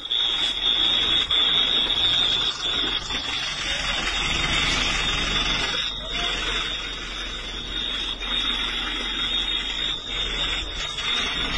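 A steady, high-pitched electronic alarm tone sounds throughout, over a loud hissing rush of noise that starts abruptly at the beginning.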